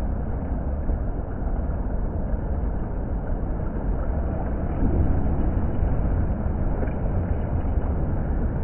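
Water fountain running, a steady rushing splash with a deep low rumble and no let-up.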